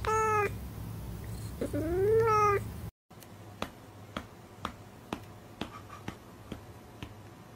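Domestic cat meowing twice: a short falling meow, then a longer one that rises and falls. After a brief break comes a row of light clicks, about two a second.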